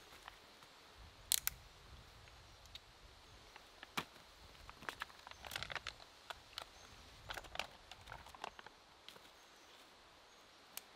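Faint, scattered light clicks and taps of camping gear being handled, over a quiet outdoor background.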